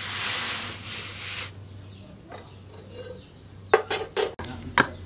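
Hot leaf-spring steel knife blade hissing as it is quenched in a water trough, for about a second and a half. Then a few sharp metallic clinks as the blade and tongs are set down on the trough's stone edge, and a sharp knock near the end.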